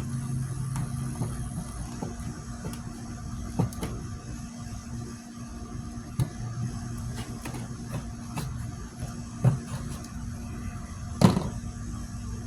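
Sharp knocks and taps of a hand tool working at the clay packed inside a cardboard firework shell, five or so over the span, the loudest near the end, over a steady low hum.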